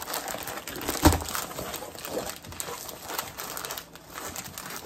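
Rolled diamond painting canvas crinkling and rustling as it is rolled backwards to loosen its tight roll. There is one sharp thump about a second in.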